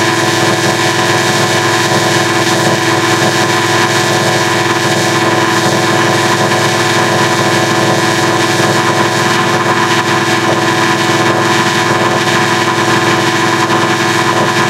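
Digitally processed logo-intro audio run through a harmonic-adder effect: a loud, unchanging drone of many steady tones layered together, with no pauses.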